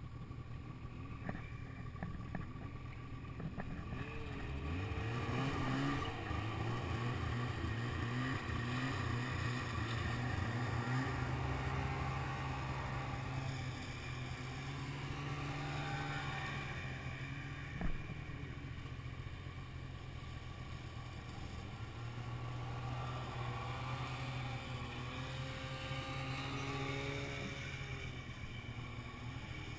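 Snowmobile engines running on the move, the nearest sled's engine revving up about four seconds in and then holding a steady drone that rises and falls with the throttle. One sharp knock a little past halfway.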